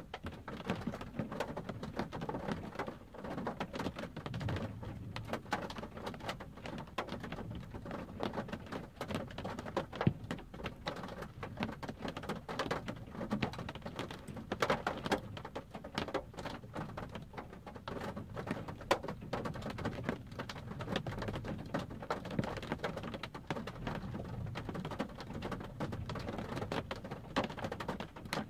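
Rain pattering on a car's roof and windshield, heard from inside the car: a dense, irregular run of drop impacts.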